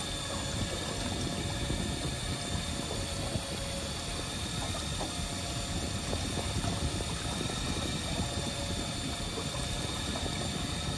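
Steady drone of a fishing boat's engine running at sea, with a faint steady high whine over it.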